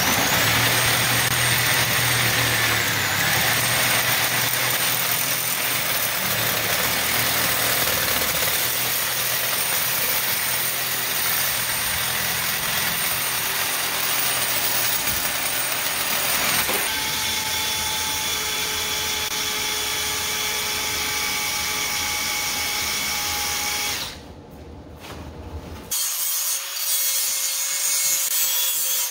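Handheld electric power tools running under load: a high, steady motor whine over loud grinding noise that dips briefly about three seconds in and changes character a little past halfway. Near the end it drops away briefly, then another tool starts with a lower whine that sags once under load.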